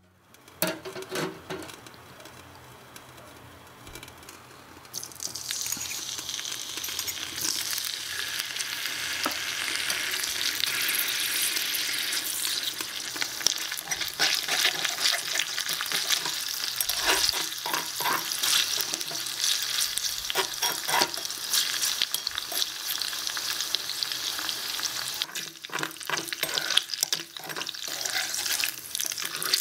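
Oil sizzling in a tiny metal frying pan as small cubes fry, building up about five seconds in and then holding steady. A slotted metal spoon stirs the cubes, clicking and scraping against the pan.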